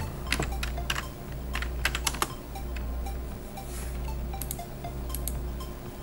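Typing on a computer keyboard: a quick run of keystrokes in the first couple of seconds, then a few more clicks near the end, over a low steady hum.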